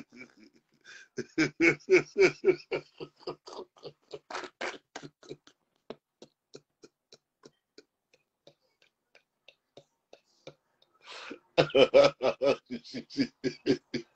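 A man laughing hard in quick rhythmic bursts. The laughter fades to faint, breathy pulses in the middle, then breaks out loud again near the end.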